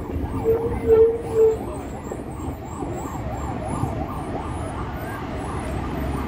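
An emergency-vehicle siren warbling fast, about four rises and falls a second, over the low rumble of a moving bus. Near the start, three short horn beeps sound over it.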